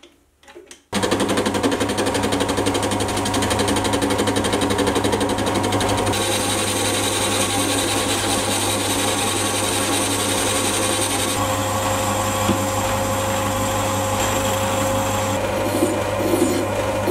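Small metal-turning lathe starting up about a second in and running steadily with a low motor hum, while a carbide tool faces the end of a spinning steel workpiece. Near the end a hand file is stroked a few times against the spinning work.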